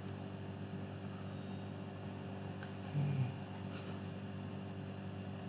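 Steady electrical hum and room noise, with a short rubbing noise about three seconds in and a fainter one just under a second later.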